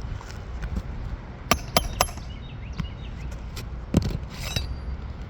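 Sharp metal clicks of a pry tool working the last staple out of a roof shingle: three quick clicks a little past a second in and another about four seconds in, over a low background rumble.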